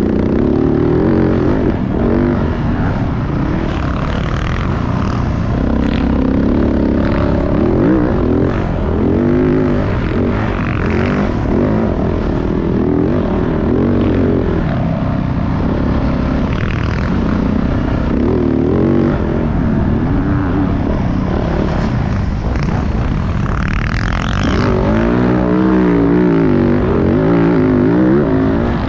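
Motocross dirt bike engine being ridden, its revs repeatedly climbing and dropping, over a steady rush of noise.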